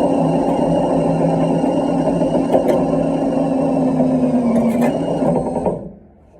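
A drill driving a Stripmeister wire stripping machine, running steadily with an even motor whine while copper wire feeds through it, with a couple of faint clicks. The pitch dips slightly just before the drill stops, near the end.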